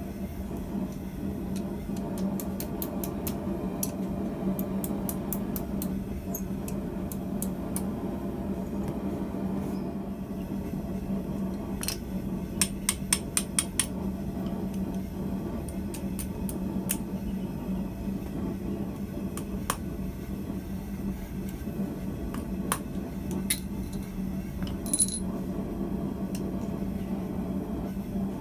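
Light metallic clinks and taps of steel tools and hot round steel bar being handled and worked on a steel block and bending jig, with a quick run of sharper taps about halfway through and another single clink near the end, over a steady low hum.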